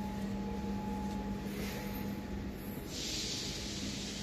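Workshop background noise: a steady low hum, joined by a hiss about three seconds in.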